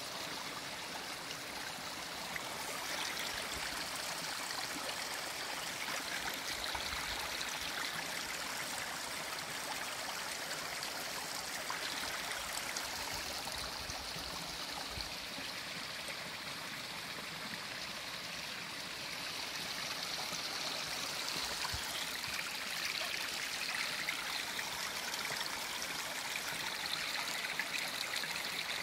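Shallow stream water running over rock slabs and between boulders: a steady trickling rush of moving water.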